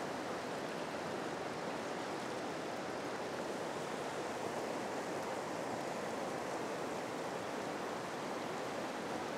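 Fast, shallow river run rushing over rocks: a steady, even rush of moving water.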